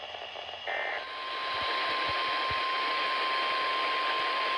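NOAA Weather Radio broadcast over static hiss: a short burst of digital data tones less than a second in, then the steady 1050 Hz weather alert tone, which signals that a new warning is about to be read.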